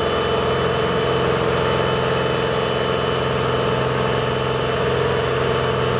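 Tractor diesel engines running at a steady, unchanging pitch.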